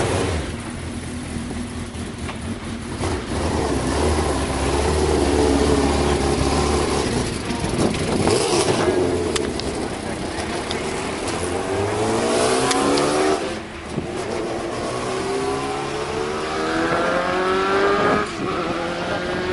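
2009 Toyota Formula 1 car's V8 engine accelerating hard, its note climbing in pitch through the gears, with brief dips at the upshifts twice in the latter half.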